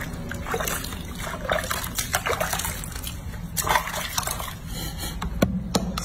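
Water sloshing and splashing in a sink basin as hands scoop it over and rub a baby macaque during a bath, with a couple of sharp knocks a little over five seconds in.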